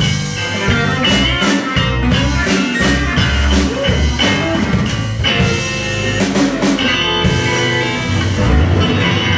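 Live blues band playing in G: electric guitar through a Fender amp over bass guitar and a drum kit.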